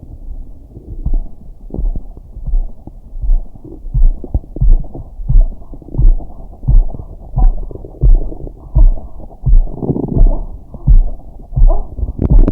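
Heartbeat thudding steadily through the abdomen, about 85 beats a minute, with a digestive gurgle from the stomach and intestines swelling up about ten seconds in.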